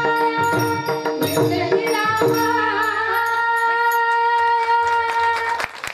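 A Marathi bhajan sung by a woman, with drum accompaniment and held instrumental notes. The drum stops about two seconds in, and the final note is held and ornamented before cutting off abruptly near the end.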